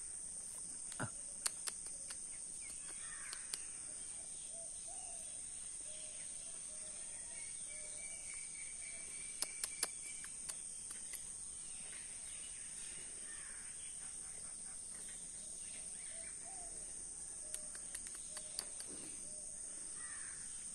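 Insects chirring steadily in a high, unbroken drone, with a few scattered light clicks.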